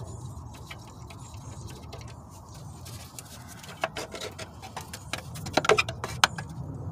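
Thin sheet-metal exhaust manifold heat shield clinking and rattling against the engine as it is worked loose and lifted out. The sharp metallic clicks come irregularly from about halfway in, loudest near the end, over a steady low hum.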